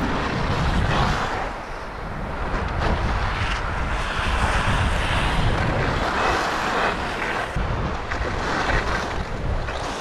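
Wind rushing over an action camera's microphone while skiing downhill, mixed with the hiss and scrape of skis sliding on snow. It is a steady noisy rush that dips briefly about two seconds in.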